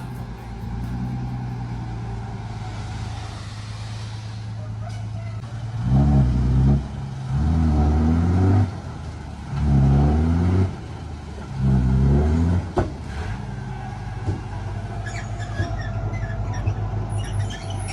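Diesel engine of heavy construction equipment running steadily, then revving hard four times in quick succession, each rev lasting about a second. Scattered light clatter follows near the end.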